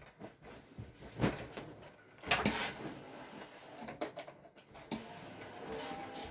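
Laundry being handled and ironed: a bedsheet shaken out with two loud flaps, then a steam-generator iron pushed over the cloth, a soft steady rubbing with a few light clicks.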